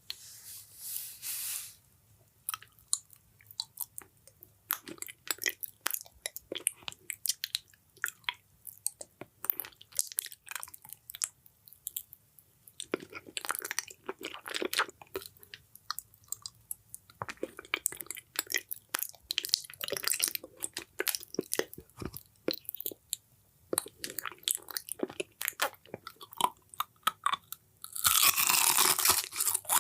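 Close crunching and crackling: many small sharp crunches in irregular runs, turning into a dense, louder crinkling near the end.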